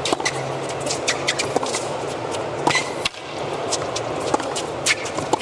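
Tennis rally on a hard court, opening with the serve: rackets strike the ball back and forth, with sharp shoe squeaks and scuffs on the court between shots.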